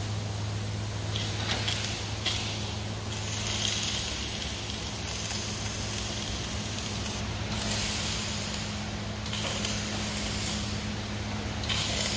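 Wire-feed MIG welding arc crackling and hissing on steel railing tube, in stretches of a second or so as the welds are laid, over a steady low hum.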